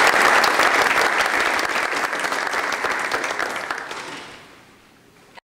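Audience applauding, dying away over the last couple of seconds before the sound cuts off.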